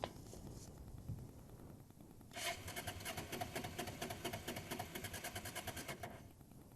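Honda Deauville NT650V's electric starter motor cranking the V-twin for about four seconds with a fast, even rasping whir, then stopping without the engine catching. The bike has just died, which the rider takes for fuel starvation. A sharp click at the very start.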